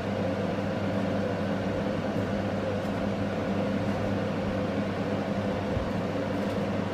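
Steady low background hum with a constant pitched drone under a light hiss, unchanging throughout.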